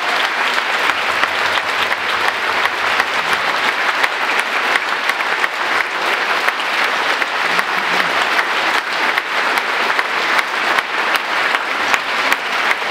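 Audience applauding: dense, even clapping that holds steady throughout.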